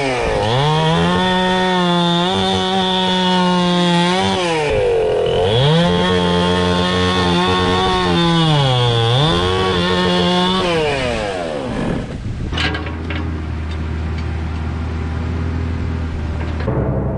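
Gas chainsaw cutting apple wood at high revs, its pitch dipping twice, then winding down to a lower steady idle about twelve seconds in, with a sharp knock as it drops.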